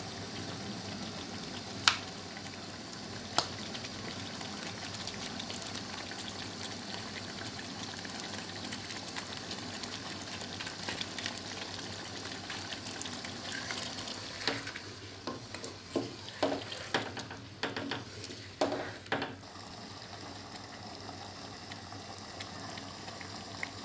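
Chicken in yogurt-and-cream gravy sizzling steadily in a kadai over a low flame, with two sharp taps in the first few seconds. Past the middle, a wooden spatula stirs and scrapes against the pan in quick, uneven strokes for about five seconds.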